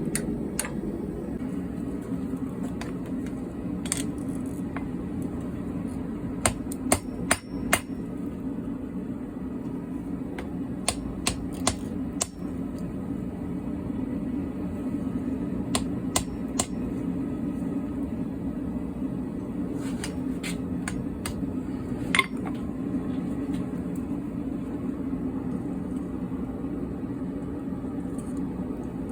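Hammer blows on hot car spring steel at the anvil, struck in short groups of two to four ringing strikes with pauses between, over a steady low roar.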